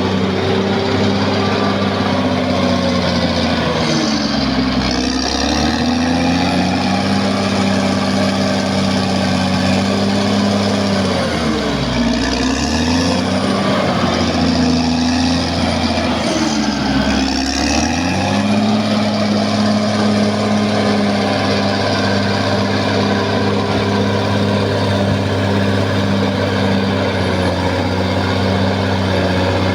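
Caterpillar D6R XL bulldozer's diesel engine running steadily; three times its pitch sags and then climbs back up: a few seconds in, near the middle, and a little after.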